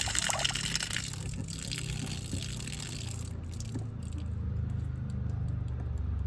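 Water running from a freshly rebuilt outdoor frost-free hose bibb, easing off about a second in and stopping about three seconds in as the faucet is shut. A low steady rumble then takes over and grows louder near the end.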